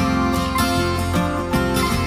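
Background music led by acoustic guitar, with plucked notes over a sustained bass.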